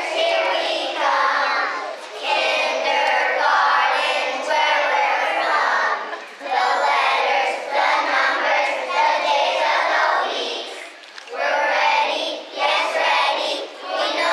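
A group of young children singing together in unison, phrase by phrase, with a brief break about three-quarters of the way through.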